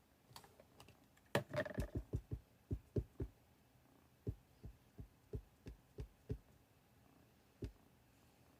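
Soft, low thuds of a rubber stamp being tapped repeatedly onto an ink pad to ink it, about three taps a second in one run, with a few sharper clicks near the start.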